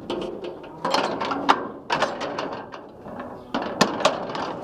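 A run of irregular sharp knocks and clanks, the loudest about one and a half and four seconds in.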